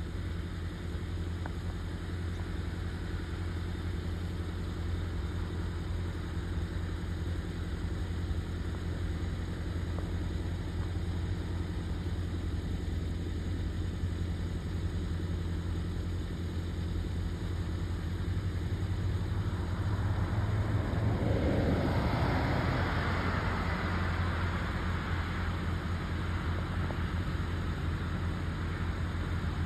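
De Havilland Dash 8-Q400's twin Pratt & Whitney PW150A turboprop engines at takeoff power on departure: a steady low propeller drone. About two-thirds of the way through it swells louder with a broad rushing noise, then eases slightly.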